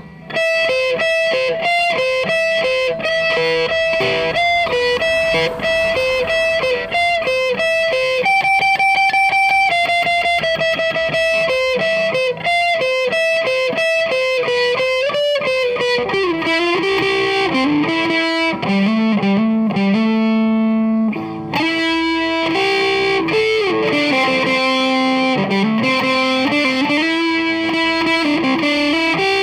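Electric guitar played through a Deviser TG-30 practice amplifier: a melody of single notes, some held and some in quick runs, dropping to lower notes about two-thirds of the way through.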